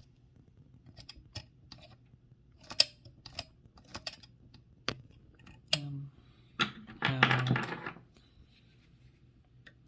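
Irregular mechanical clicks from a 1925 Mignon 4 index typewriter's escapement mechanism as it is worked with the carriage removed, turning into a denser clatter about seven seconds in.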